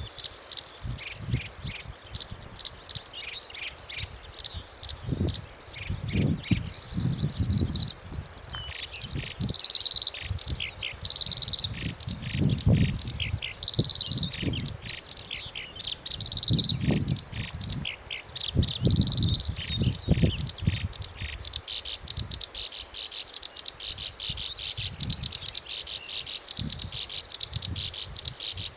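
Black-browed reed warbler singing without a break: a quick, varied run of high, buzzy trills and repeated chattering notes. Low rumbles come and go underneath.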